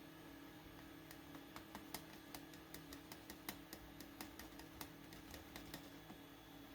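Near silence: a faint string of small, irregular clicks and ticks, several a second for about five seconds, over a low steady hum.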